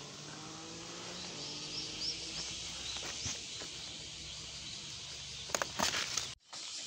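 Steady drone of summer insects in a field, with a few short high chirps about two seconds in and some rustling clicks near the end, before the sound cuts out abruptly for a moment.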